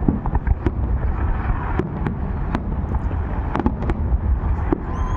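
Fireworks display going off: irregular sharp bangs and crackles over a constant low rumble.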